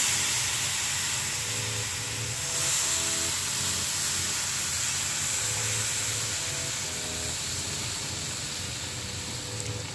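Hot boiled milk poured into a hot pan of ghee-fried vermicelli, sizzling with a loud, even hiss that starts suddenly and dies down gradually.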